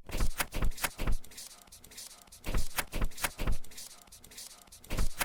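Quick runs of sharp clicks and knocks in three bursts of about a second each, at the start, near the middle and at the end, with quieter gaps between.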